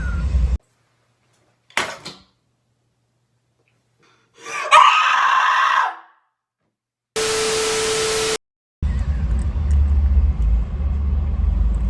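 Edited reaction sound effects over cuts to dead silence: a short click, then a loud scream-like effect of about a second and a half, then a burst of static hiss with a steady tone. Low steady background noise returns for the last few seconds.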